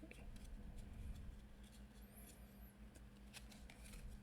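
Faint handling of trading cards: a few soft clicks and a brief high scraping rustle of card stock sliding as the cards are flipped through, over a low room hum.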